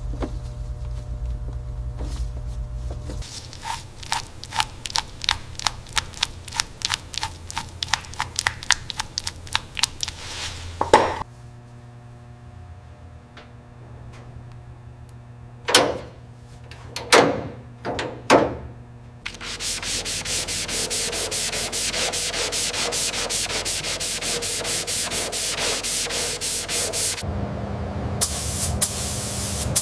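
Sanding strokes by hand in several short runs. First a regular run of strokes, then three separate strokes, then a faster, denser stretch of rubbing.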